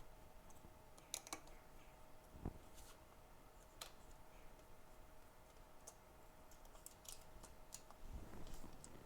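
Sparse small clicks and taps of a precision screwdriver and tiny phone screws being removed from an iPhone's logic board, over a faint steady tone. A low rumble comes in near the end.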